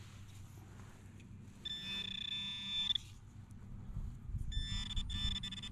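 Handheld metal-detecting pinpointer giving its steady electronic buzz twice, for about a second and then for nearly two seconds, as it homes in on a coin target in the grass.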